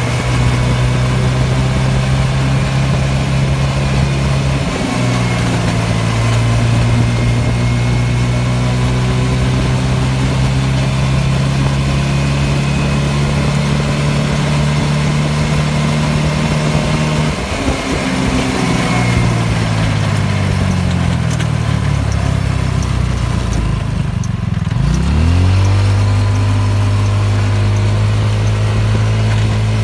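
Go-kart engine running steadily while driving. About two-thirds of the way through its pitch falls away as it slows, then it dips and picks back up to a steady run near the end.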